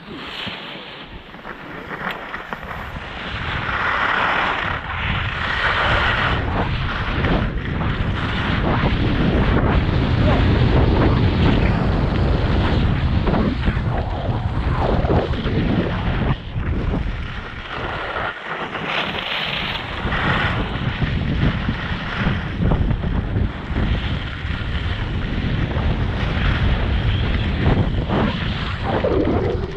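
Wind buffeting the microphone while moving at speed: a steady low rumble with gusty rushing noise, building over the first few seconds.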